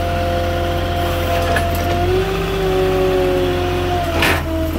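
Moffett truck-mounted forklift engine running steadily as the machine drives alongside the flatbed. About two seconds in, its pitch shifts as the engine speed changes, and near the end there is a short burst of hiss.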